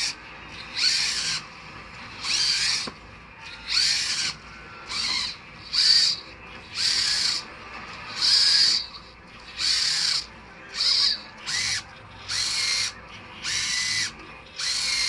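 RC servo motors of a 3D-printed robot arm whining in short bursts as they drive the joints, about one burst a second, each half a second to a second long, with the pitch bending up and down within it.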